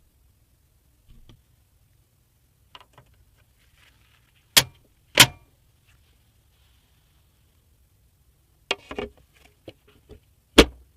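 Computer parts being handled and fitted by hand: sharp clicks and knocks of hard plastic and metal. There are two loud clicks about half a second apart a little past the middle, a small cluster of clicks and rattles near the end, and one more sharp click just before it ends, with light handling ticks in between.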